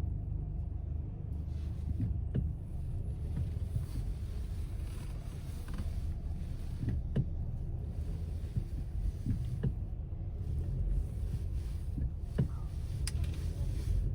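Steady low rumble of a vehicle in motion, with a few light clicks and knocks scattered through it.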